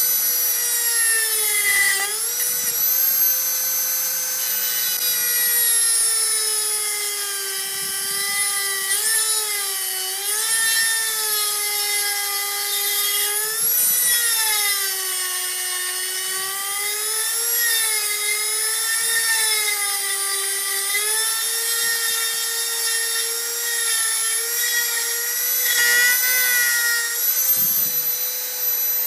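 Dremel rotary tool with a cutoff wheel cutting into the steel frame of a hole punch: a steady high motor whine whose pitch sags each time the wheel is pressed into the metal and recovers as it eases off.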